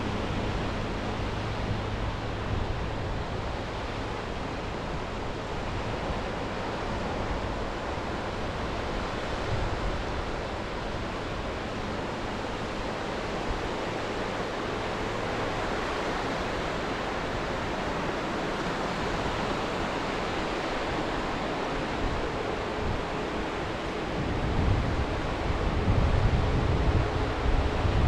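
Sea waves washing onto the shore with steady wind, and a faint low hum in the first part. Near the end, wind buffets the microphone with louder low rumbling.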